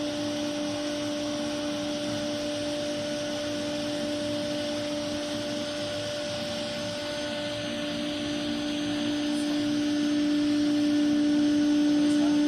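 CNC nesting router running, a steady hum with a higher overtone under an airy, vacuum-like rush, getting louder over the last few seconds.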